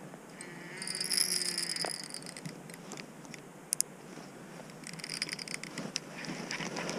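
Fishing reel on an ultralight trout rod, with a short buzzing run about a second in, two sharp clicks midway and a spell of quick ticking near the end, typical of drag giving line and the reel being worked while a large steelhead is played.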